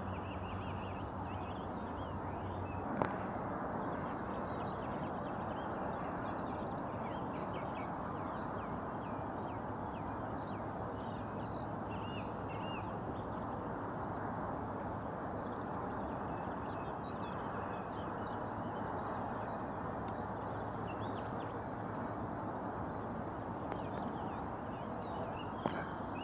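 Small birds chirping and trilling in many short, quick calls over a steady low background rush, with one sharp click about three seconds in.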